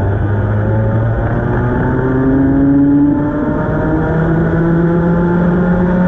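Racing kart engine at full throttle, heard onboard, its pitch climbing steadily along the straight, dipping briefly about three seconds in, then holding steady at high revs.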